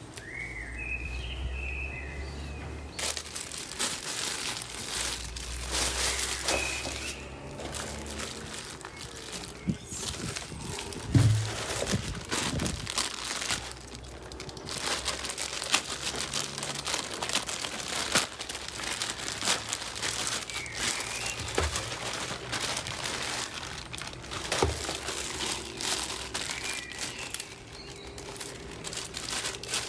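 Plastic packaging crinkling and rustling in the hands as a poly mailer is pulled open and items in clear plastic bags are unwrapped, with many sharp crackles and a louder thump about a third of the way in.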